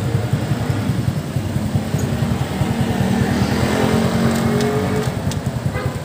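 Motorcycle engine running as it is ridden slowly, with steady low pulsing throughout. Its pitch rises from about halfway through as it picks up speed.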